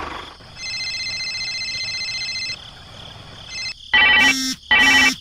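Electronic ringtone-like tone held steadily for about two seconds, then two short, loud electronic beeps near the end.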